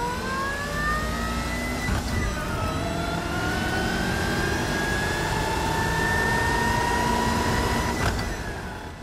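A race car's engine revving hard during a burnout on drag slicks. Its pitch climbs steeply, drops sharply about two seconds in like a gear shift, then climbs slowly again before fading out near the end.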